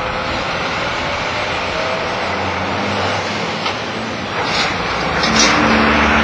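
Truck engine and tyres as a white cab-over truck pulls through a roundabout and passes close by, growing louder as it nears.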